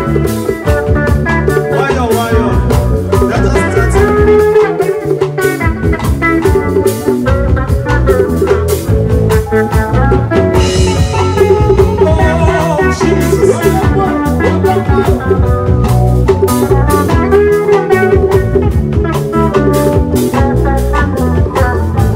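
A live band playing Afro-life music, with electric guitars and a drum kit keeping a steady beat.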